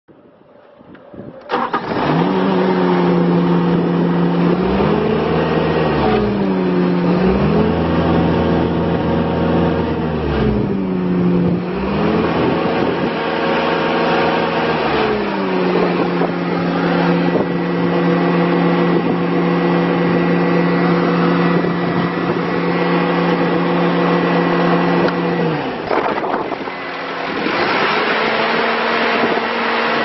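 Bobcat S630 skid steer's Kubota four-cylinder diesel engine starting about a second and a half in, then running, its speed rising and falling several times before holding steady, with another dip and rise near the end.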